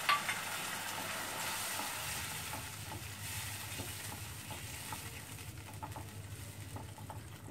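Curry in a non-stick kadai sizzling as water is added and a spatula stirs it. There is a click at the start and a few faint taps of the spatula, and the sizzle slowly dies down.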